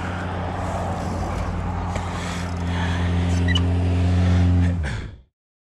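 A motor vehicle engine runs steadily at a constant low pitch and grows louder over the last couple of seconds, then the sound cuts off abruptly a little after five seconds in.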